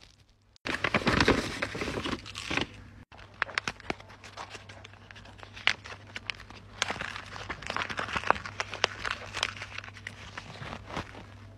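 Paper and thin plastic wrapping crinkling and tearing as a blind bag is unwrapped by hand. It is loudest for about two seconds near the start, then goes on as many small crackles.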